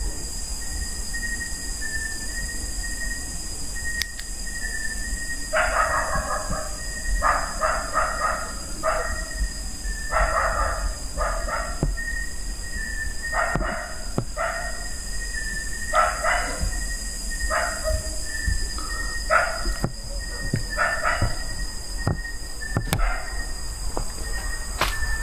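Dogs barking in repeated bouts of several barks each, over a steady high-pitched drone and a faint high tone that comes and goes.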